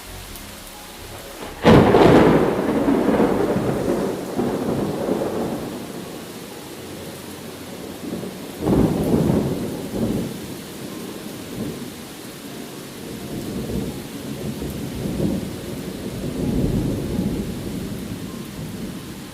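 Thunder during steady rain: a sudden loud clap about two seconds in that rolls off over several seconds, a second peal near the middle, then lower rumbles.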